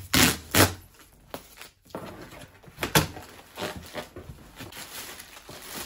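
A cardboard parcel being opened and handled, with a few loud sharp noises in the first second and another about three seconds in, then steady rustling of cardboard and plastic air-cushion packing.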